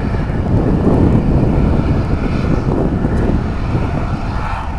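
Low rumble of an MD-88 airliner's two rear-mounted Pratt & Whitney JT8D turbofans at takeoff thrust, heard as its jet wash, slowly fading as the aircraft climbs away.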